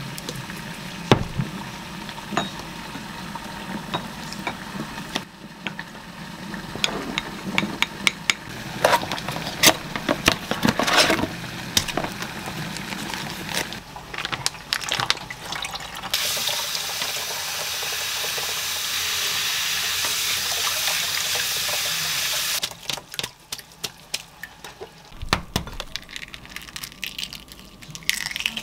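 Kitchen prep sounds: a spoon clinking and stirring in a small ceramic bowl, then a tap running into a stainless steel sink for about six seconds over noodles in a mesh strainer, the loudest sound, followed by scattered clicks and an eggshell crackling as a boiled egg is peeled near the end.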